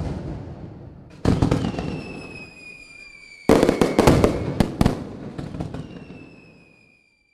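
Fireworks going off: a bang at the start and another about a second in, then a cluster of bangs and crackling a few seconds in that dies away near the end. Between the bursts a faint whistle falls slightly in pitch.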